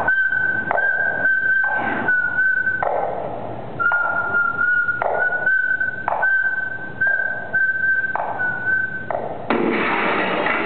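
A long, steady high whistling tone held over the noise of a crowd, with a few short breaks and a small drop in pitch partway through, while short shouts rise from the audience. Near the end a louder burst of crowd cheering takes over.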